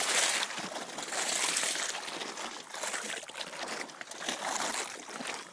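Water sloshing and splashing up through the gaps between wooden dock boards, in surges that swell and fade every second or two, as high water after heavy rain pushes against the dock.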